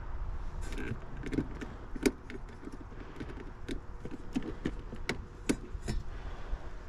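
Irregular small clicks and taps, about fifteen over a few seconds, as hands and a tool work among the wiring and sheet-metal control panel of a heat pump package unit, over a low steady rumble.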